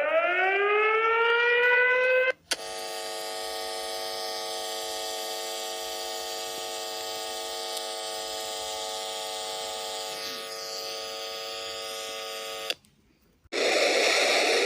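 Emergency alert alarm sounds. A siren winds up for about two seconds and cuts off, then a steady buzzing tone rich in overtones holds for about ten seconds and stops abruptly. After a short silence another siren starts rising near the end.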